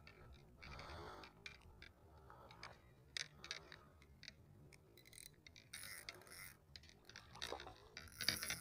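Faint, irregular clicks and ticks from a fishing reel being handled and worked during a cast, a little busier near the end.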